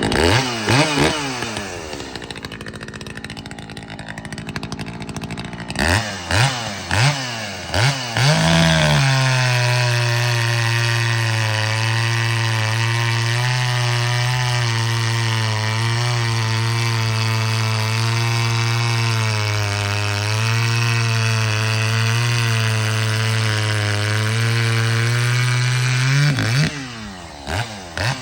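Muffler-modified Echo CS-620P two-stroke chainsaw revved in a few short throttle blips, then held at full throttle through a long cut of about eighteen seconds, its pitch wavering slightly under load. It drops off and is blipped again near the end.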